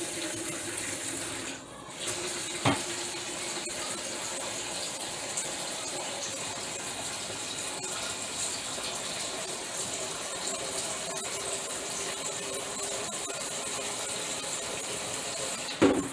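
Kitchen faucet running cold water into a pitcher, a steady rush of water as the pitcher fills. The flow drops briefly near the start, and there is a short knock about three seconds in and a louder one near the end.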